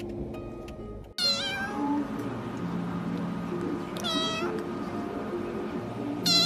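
Young kitten meowing three times, high and short: about a second in, at about four seconds, and near the end, the first call falling in pitch.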